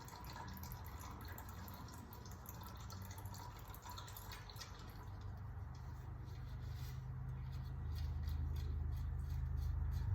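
Engine oil dripping from the drain hole into a drain pan: the last drips of an oil drain. A low rumble grows louder in the second half.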